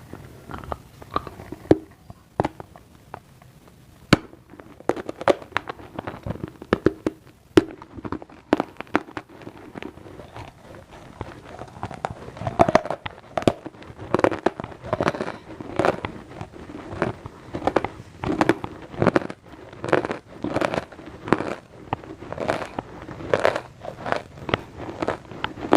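Close-up crunching and chewing of crunchy food: sharp crunches, scattered at first, then settling into steady chewing at about two crunches a second from around halfway.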